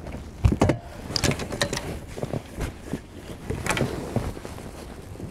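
Irregular knocks, clicks and rattles of gear being handled in a small boat, with a cluster of sharp clicks in the first two seconds and another near four seconds.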